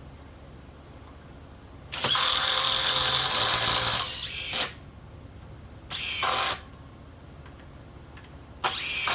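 Flex compact cordless impact driver hammering under load in three trigger pulls: one long run of about two seconds, then two short bursts. Each ends with the motor winding down. It is struggling and slow to finish, even on a stacked-lithium battery.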